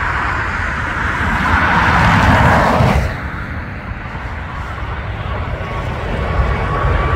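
Icelandair Boeing 757 on final approach with its gear down, its jet engines a low rumble at first, with a steady high engine whine coming in and growing louder near the end. A rushing noise builds over the first three seconds and then cuts off sharply.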